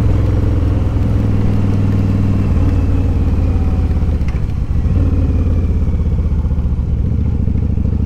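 Yamaha V-Star 1100 Classic's air-cooled V-twin engine running at road speed. Its note shifts about two and a half seconds in and again near the middle.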